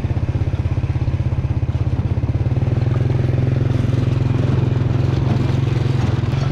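A small engine running at a steady speed, with a rapid, even pulsing beat.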